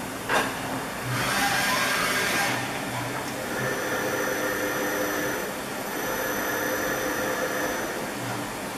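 Dahlih MCV 1020 BA vertical machining centre working: a sharp clunk near the start and a short rush of hiss, then the spindle motor whining steadily through a rigid tapping cycle at 500 rpm. The whine breaks off briefly midway as the spindle reverses to back the tap out, then stops near the end as the spindle winds down.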